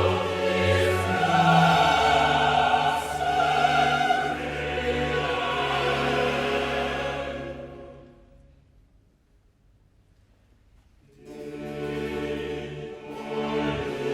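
Baroque opera music from orchestra with singing and chorus, fading out about eight seconds in; after a few seconds of near silence the orchestra starts up again.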